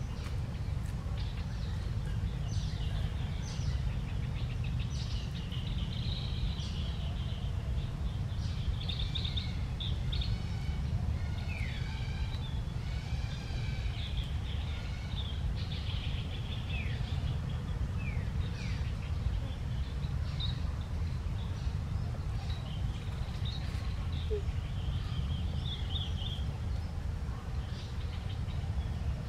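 Wild birds chirping and calling, many short calls, a few gliding down in pitch, over a steady low rumble.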